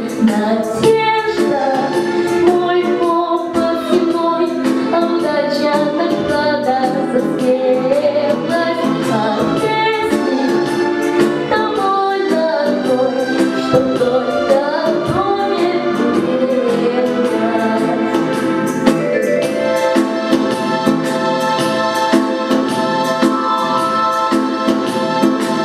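A girl singing into a microphone over a recorded backing track with a steady beat. About three quarters of the way through her voice stops, and the backing track plays a closing passage of held chords.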